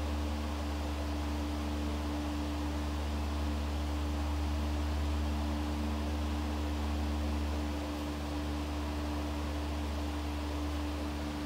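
A steady low electrical or mechanical hum with a faint higher tone held over it, above a background hiss.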